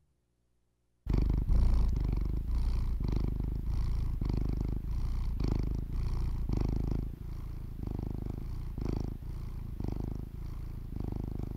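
A domestic cat purring close to the microphone, starting about a second in after a brief silence, swelling and easing with each breath about once a second.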